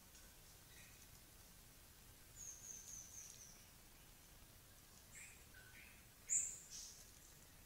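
Small forest birds calling faintly over a quiet background hiss: a quick run of about five high chirps some two and a half seconds in, a few short lower notes, and one sharper, louder high note near the end.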